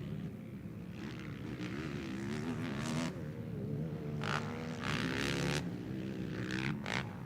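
Racing ATV quad engines revving on a motocross track, their pitch rising and falling as riders open and close the throttle, growing louder a few times midway.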